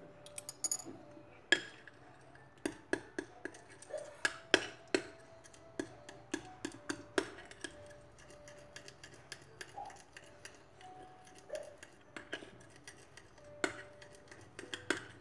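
Spoon clicking and scraping against a small glass bowl while stirring a thick warm cream, in light irregular ticks a few a second.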